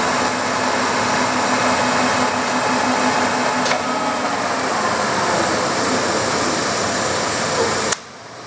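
Clausing 1250 Magnum gearhead lathe running under power, a steady loud machine noise with a faint click a bit after the middle. The sound cuts off sharply near the end.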